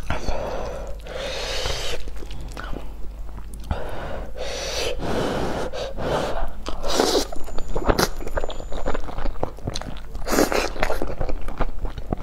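Close-miked chewing and slurping of noodles: wet mouth sounds with several sharp slurps as strands are sucked in.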